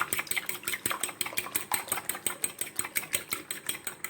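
Four eggs being beaten in a bowl: a utensil clicks against the bowl in a fast, even rhythm of about eight strokes a second, stopping near the end.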